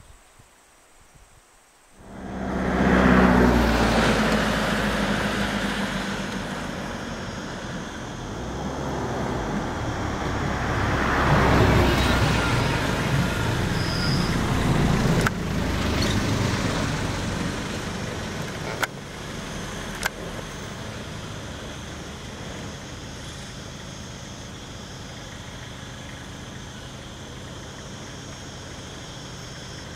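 Motor vehicle engines running and idling close by, coming in suddenly about two seconds in, with a few sharp clicks around the middle.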